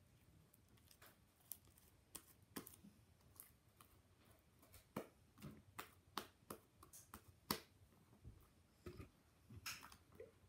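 Faint, irregular sticky clicks and pops of white slime being squeezed and stretched between the hands, coming more often in the second half.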